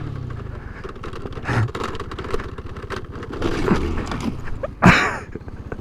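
TGB scooter crashing on a dirt trail: its single-cylinder engine drops to a fast, even ticking idle as the throttle is let go, while the scooter scrapes and knocks over dirt and leaf litter. A short, loud, sharp burst comes about five seconds in.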